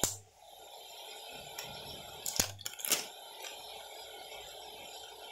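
Kitchen cooking sounds over a steady hiss: a sharp click as the oyster sauce bottle is handled at the start, then a quick cluster of knocks and clicks about two and a half seconds in as a utensil works in the steel wok.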